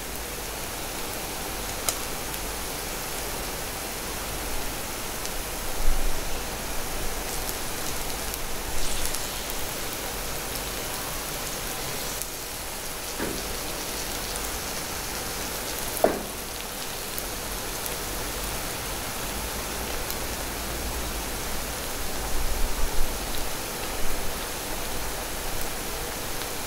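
Steady hiss of takoyaki batter frying in the non-stick pan of a gas takoyaki machine over its lit burner. A few short knocks and taps sound against the pan, clustered near the end.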